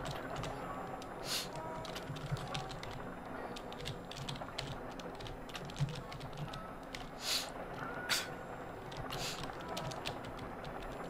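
Typing on a computer keyboard: rapid, irregular keystroke clicks, with a handful of louder, longer strokes spread through.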